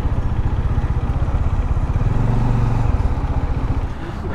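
Motorcycle engine running, heard from the rider's seat: a steady low firing beat that drops away near the end.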